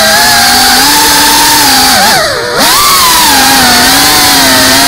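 FPV racing quadcopter's brushless motors and propellers whining, heard close on the onboard camera with a rush of air, the pitch wavering as the throttle changes. About two seconds in, the whine drops sharply and dips as the throttle is cut, then climbs back as the motors are punched again.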